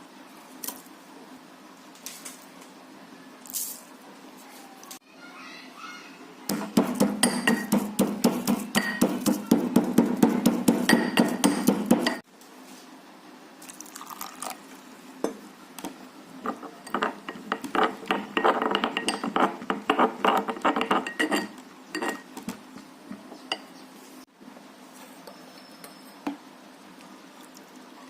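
Kitchen utensils knocking and clinking against a vessel in quick runs of strikes. A loud, heavier run comes about a quarter of the way in, and a lighter, brighter run about two thirds in, with scattered single clinks between.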